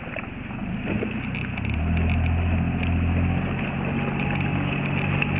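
A motorboat engine running with a steady low hum that comes up about two seconds in and eases off near the end, over wind on the microphone.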